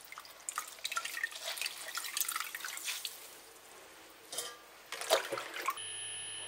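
Water splashing and dripping in irregular small splashes as hands squeeze and rinse soaked dried mushrooms in a bowl of water, quieter for a moment in the middle. Near the end it cuts to a steady hum.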